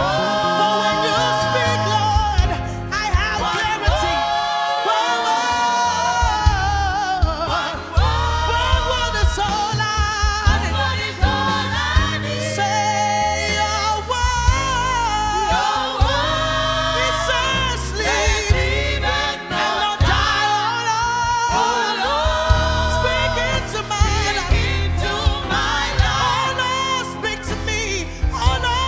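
Gospel worship music: singers and a choir singing with vibrato over a live band with bass and drums.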